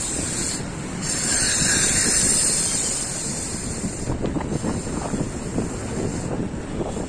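Wind buffeting the microphone of a camera on a moving bicycle, over a low rumble from riding down the road. The rush swells about a second in, and light rattling clicks come through in the second half.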